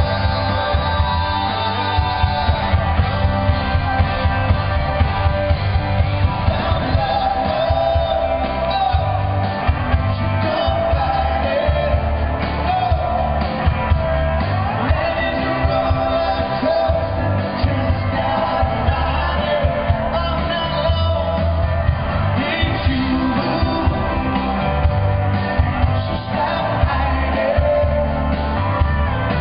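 Live pop band music: a man sings lead over keyboards and a steady drum beat, with audience shouts mixed in, heard from among the crowd.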